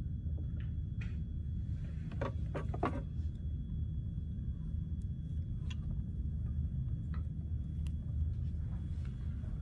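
Steady low hum of room noise, with faint clicks and rustling from wires and plastic parts being handled. A short cluster of clicks comes about two to three seconds in, and a few single small clicks follow later.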